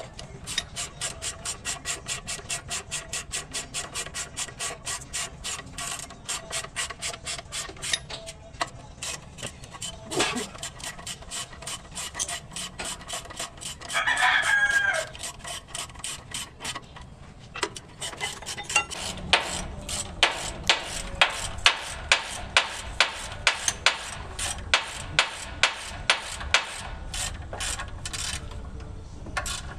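Hand ratchet wrench clicking in quick strokes, about four clicks a second, as the bolts holding an Eaton clutch pressure plate to the flywheel are run down. The clicking thins out mid-way and comes back louder in the second half. A brief, loud, wavering call cuts in about fourteen seconds in.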